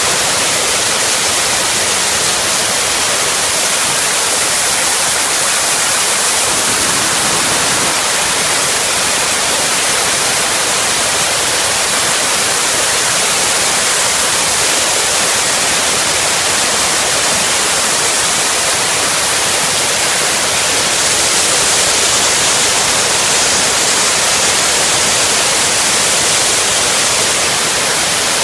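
Steam blowing off from a gasification boiler through a handheld half-inch valve and pipe at about 120 psi: a loud, steady hiss. The boiler holds its pressure while venting.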